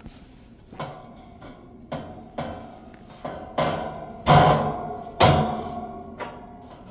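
Irregular knocks and clanks with a short metallic ring after each, from the metal parts of a vintage box fan being handled. The two loudest come about four and five seconds in.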